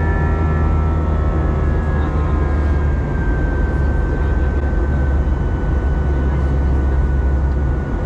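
Airbus A320 cabin noise in flight: a steady, loud jet-engine rumble with a thin engine whine that slowly falls in pitch.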